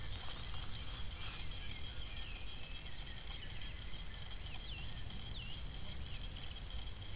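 Outdoor nest-camera sound: a steady low rumble of wind on the microphone, with scattered short bird chirps from the surrounding forest and a thin steady high tone.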